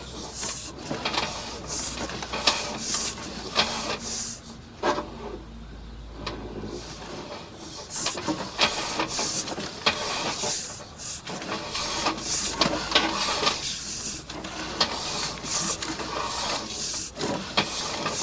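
Sewer inspection camera's push cable being fed and worked through the pipe: irregular clicking and rubbing, with a low steady hum under parts of it.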